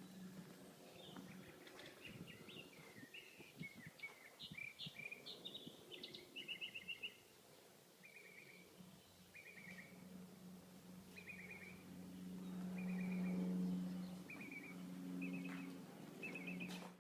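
Faint birdsong: a run of quick, varied chirps, then short chattering phrases repeated about once a second. A low steady hum runs underneath and grows louder about twelve seconds in.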